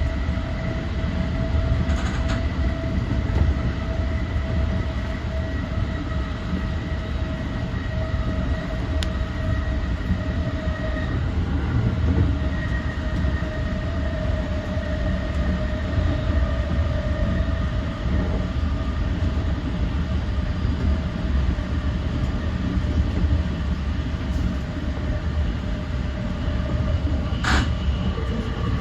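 JR East E235-1000 series electric train running at speed, heard from inside the leading car: a steady rumble of wheels on track with a steady whine over it. There is one sharp click near the end.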